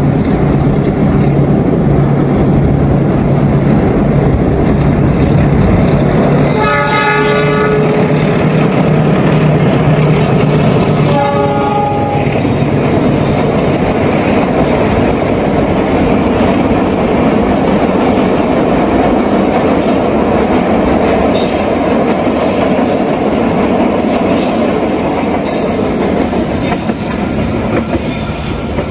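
Diesel locomotive hauling a passenger train across a steel truss viaduct: the engine runs steadily and the horn sounds twice, a blast of about two seconds some six seconds in and a shorter one about eleven seconds in. After that comes the steady noise of the carriages rolling over the bridge.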